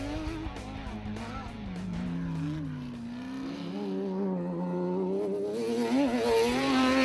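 Off-road race buggy engines running hard as the cars pass, their pitch rising and falling with the revs.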